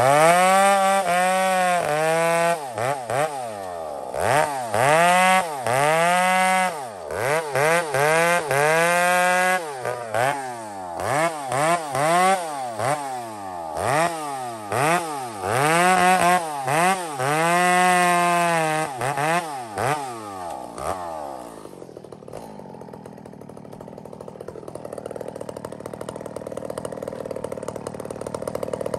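Chainsaw bucking small logs: the engine is throttled up into a cut and eases off again, over and over in quick succession. About 22 seconds in it drops to a steady idle.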